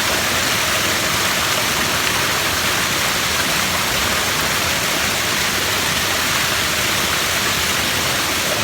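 Waterfall: falling water rushing steadily and evenly at a constant loud level.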